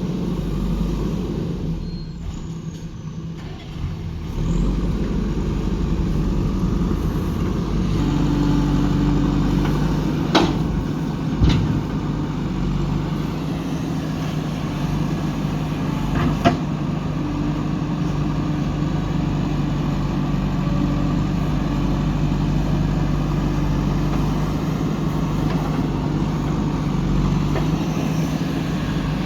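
JCB 3DX backhoe loader's diesel engine running steadily under working load. It dips briefly, then picks up again, and works harder about eight seconds in. Several sharp metallic knocks sound partway through.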